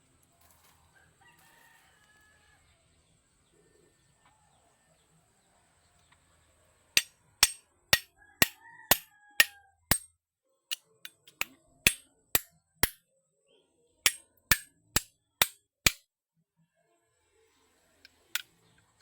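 A series of loud sharp knocks, about two a second, in three runs with short pauses between them, and a rooster crowing faintly in the background.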